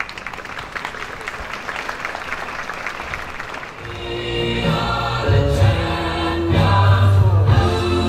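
Audience applauding. About halfway through, music with a heavy bass line and singing comes in and takes over.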